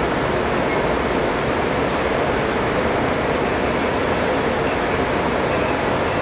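A steady, even rushing noise that does not change, with no separate knocks or tones.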